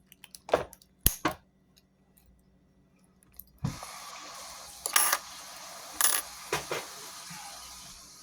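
Sharp metallic clicks and clinks of picking tools working a weathered Travco 720 padlock, several in quick succession. About three and a half seconds in, a steady hiss of running water starts and carries on under further clicks.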